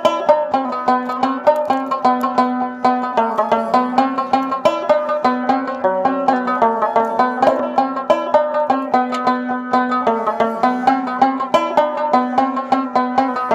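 Background music: a quick, steady run of plucked-string notes.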